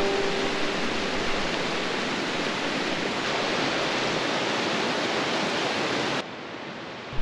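Steady rush of a mountain waterfall, loud falling water with no pitch to it. About six seconds in it drops abruptly to a quieter rush. The tail of a music track fades out in the first half second.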